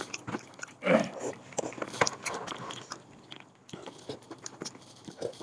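Wooden chopsticks scraping and clacking inside a ceramic cooking pot, pushing the last bits of food out into a bowl: irregular clicks and scrapes, with louder knocks about one and two seconds in.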